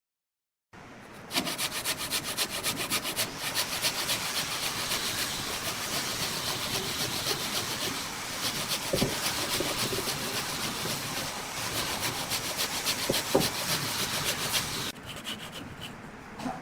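A tool rasping against wood with a fast, even pulse. It starts about a second in and stops shortly before the end.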